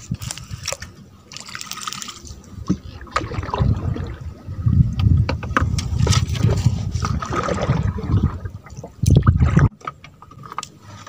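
Paddle strokes and water sloshing against the hull of a small wooden boat, uneven and strongest in the middle stretch, with scattered knocks.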